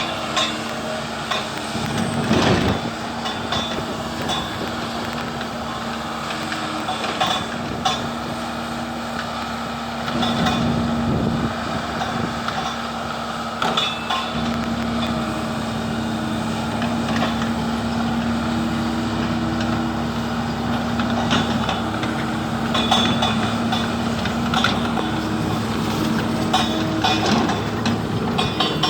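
Kobelco SK170LC-10 hydraulic excavator running, its diesel engine humming steadily under scattered metallic clanks and knocks. It grows louder about ten seconds in.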